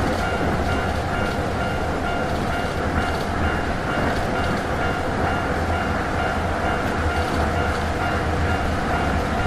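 Electric train running along the track: a steady rumble with rail noise, and a faint high tone repeating on and off throughout.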